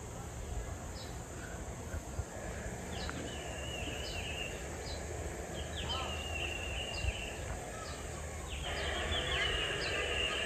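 Birds chirping and singing: short high chirps about once a second, with longer warbling phrases now and then, over a steady low outdoor rumble.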